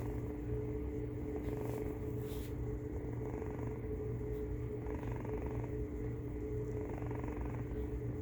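A sleeping pet snoring steadily, with a low, evenly pulsing rumble. A steady electrical-sounding hum runs underneath.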